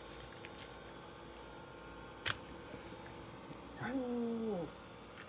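Faint, quiet wet sounds of a kitchen knife filleting a large fish on a plastic cutting board, with one sharp tap about two seconds in. Near four seconds in a person gives a short hummed 'mm', its pitch dropping at the end.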